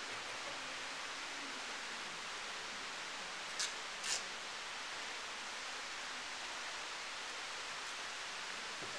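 A steady, even hiss of background noise, with two short sharp clicks about three and a half seconds in, half a second apart.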